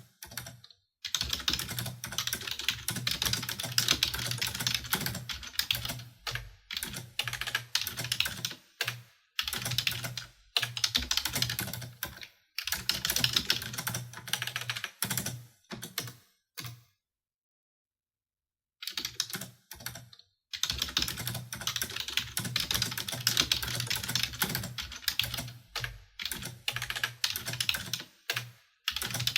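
Fast typing on a computer keyboard: dense runs of key clicks lasting a few seconds each, broken by short pauses and one longer silence about two-thirds of the way through.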